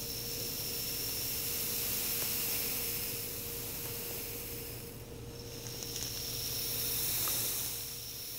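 Homemade rain stick, a cardboard tube with flathead nails pushed in along a helix and filled with basmati rice, poured slowly so that the rice clicking against the nails merges into a steady hiss like white noise. About five seconds in the tube is turned over: the pour fades, then swells again.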